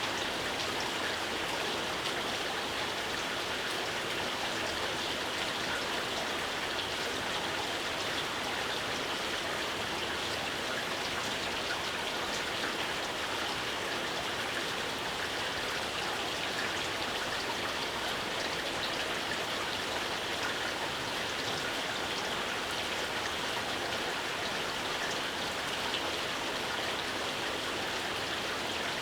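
Steady rainfall: an even hiss of rain with many small drops pattering, unchanging throughout.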